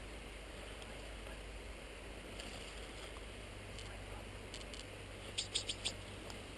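Faint steady outdoor hiss, with a few soft ticks and then a quick run of four sharp clicks about five and a half seconds in.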